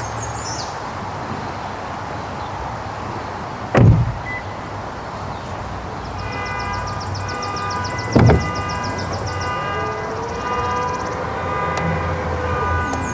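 A vehicle's low steady rumble with two heavy thumps about four seconds apart. Past the middle, a fast high rhythmic trill and a few steady tones come in.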